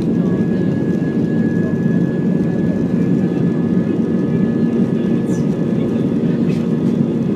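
Airbus A320 jet engines at takeoff power during the takeoff roll, heard inside the cabin: a steady, loud rumble with a faint high whine held on one note.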